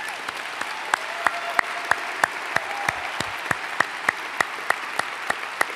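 Audience applauding. One pair of hands claps close to the microphone, about three claps a second, standing out sharply over the steady applause.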